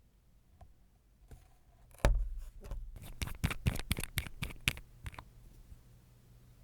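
Nail-care tools handled close to the microphone: a knock about two seconds in, then a quick irregular run of about a dozen sharp clicks and scrapes lasting some three seconds.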